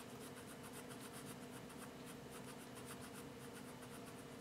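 Soft-graphite Palomino Blackwing Volume 155 pencil shading on paper with light pressure, a faint scratchy rasp of quick, even back-and-forth strokes, several a second.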